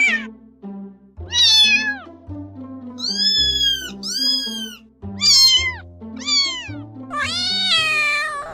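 Domestic cat meowing, about six separate meows of different pitch, two of them around the middle very high and thin, over background music with a steady low bass line.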